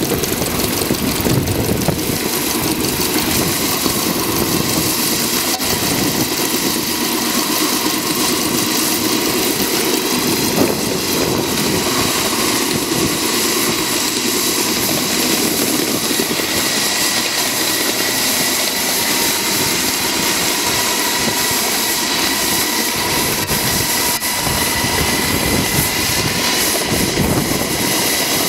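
Live steam miniature locomotive modelled on ET&WNC #12 'Tweetsie' running at speed: rapid steam exhaust beats blended with wheels running on the rails, a loud, steady noise throughout.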